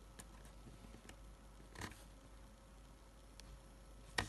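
Quiet room tone broken by a few faint, irregularly spaced clicks and one sharper click near the end, from handling a small metal pop-up pocket watch.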